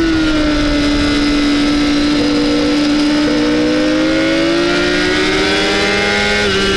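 Honda CBR600RR inline-four engine at high revs, heard from an onboard camera over steady wind rush. Its pitch sags slightly, then climbs steadily as the throttle is opened through the corner, with a brief step down near the end.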